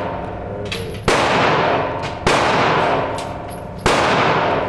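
Three gunshots at a shooting range, about a second in, a little past two seconds and near the end, each sharp crack trailing off in a long ringing decay.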